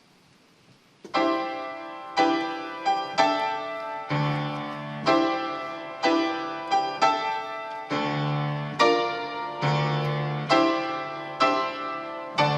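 Piano playing a slow introduction in struck chords, about one a second, each ringing and fading, starting about a second in after near silence.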